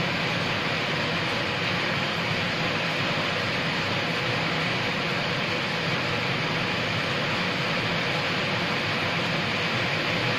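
Steady rain falling on brick paving and garden plants: an even hiss that holds the same strength throughout.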